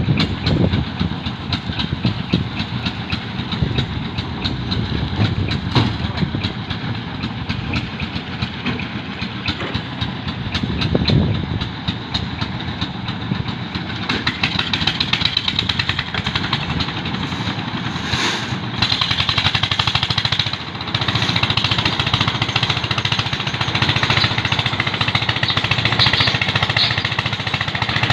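Construction machinery running continuously: a loud engine with a fast, steady rattle, growing somewhat harsher about halfway through.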